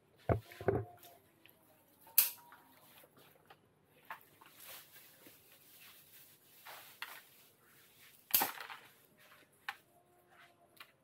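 A few scattered sharp clicks and clatters, loudest about two seconds in and again just past eight seconds, from scissors and metal tongs cutting and picking up pieces of Turkish delight among the display trays.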